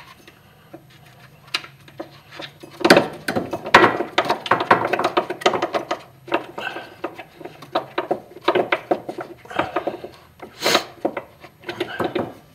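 Irregular metallic clicking and rattling as nuts are spun by hand onto the upper mount studs of a car's rear shock absorber, starting about three seconds in and going on in bursts.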